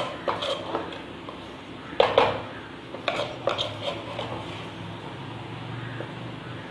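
A spoon scraping and knocking against a clay cooking pot as bitter gourd pepper fry is stirred, in a few clusters of knocks over the first four seconds, then only a low steady hum.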